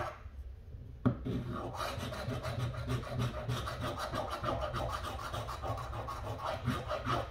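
A coin scratching the latex coating off a scratch-off lottery ticket: rapid back-and-forth scraping strokes that start about a second in and keep going without pause.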